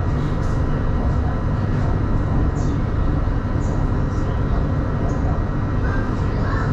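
CSR Puzhen B2-type metro train running steadily at speed along an elevated track, heard from inside the train: an even low rumble of wheels on rail and traction running. A few faint, short high-pitched sounds show now and then.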